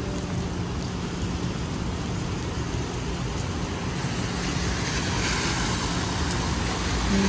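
Steady rain falling, an even hiss with no distinct drops standing out.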